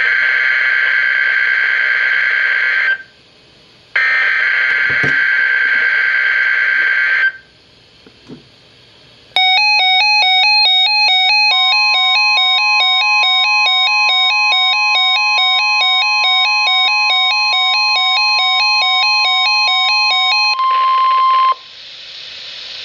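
Two burst-only bursts of the EAS digital header, harsh screeching data tones about three seconds each, from a NOAA Weather Radio Required Weekly Test. About nine seconds in, a rapid alternating two-pitch electronic beeping begins. Soon after, a steady 1050 Hz weather radio warning alarm tone starts and is held for about ten seconds, outlasting the beeping by a second.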